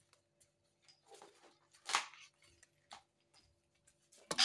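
Faint handling noises, small knocks and rustles with one brief scrape about two seconds in, then an electric angle grinder switches on just before the end.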